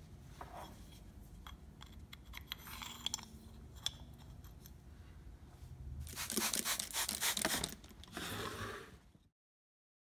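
Metal honing guide and chisel handled on a wooden workbench: scattered light clicks and taps, then a few seconds of louder metal-on-metal scraping and rubbing as the chisel blade is slid and clamped into the guide. The sound cuts off suddenly about nine seconds in.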